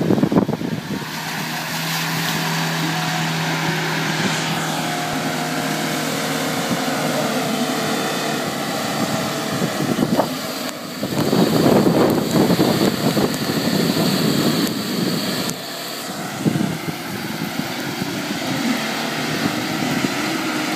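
Ford Endeavour SUV's engine running as it is driven off-road through a mud pit, getting louder for a few seconds in the middle.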